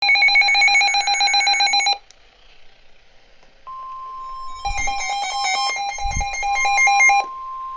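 Emergency Alert System tones on NOAA Weather Radio: a harsh two-second burst of rapidly warbling digital data tones (the SAME header). A couple of seconds later a steady high alert tone starts and holds, with a second burst of the warbling data tones over it for about three seconds. The tones signal that a weather warning is about to be broadcast.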